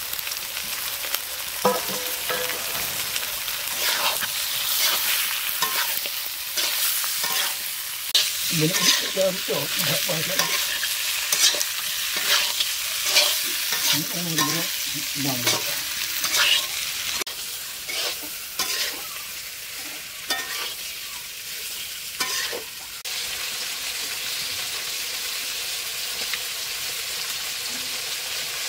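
Duck meat frying in hot oil in a metal kadai, sizzling, while a metal spatula stirs and scrapes against the pan with repeated strokes. The stirring stops about two-thirds of the way in and the sizzle goes on evenly.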